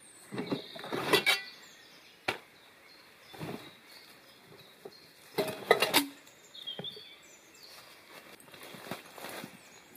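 Rummaging in a canvas backpack and pulling gear out: rustling of the bag and cloth in irregular bursts, with a sharp knock about two seconds in as the gear is handled.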